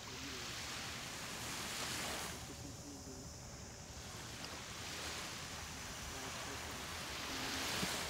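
Small waves washing up on a sandy beach, the surf swelling about two seconds in and again near the end.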